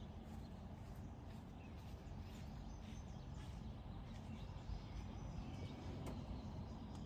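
Faint outdoor background: a steady low rumble with scattered faint bird chirps.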